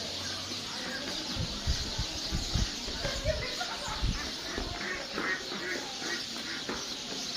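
Many small birds chirping together in a dense, continuous high twittering chorus, with a few low thumps in the first half.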